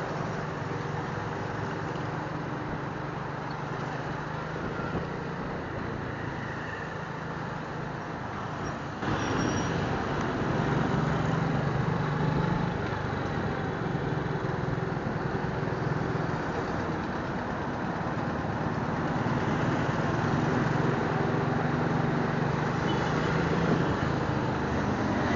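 Suzuki Smash 115's single-cylinder four-stroke engine running as the motorcycle rides along, mixed with road and traffic noise. It is steady, with the sound stepping up suddenly about nine seconds in.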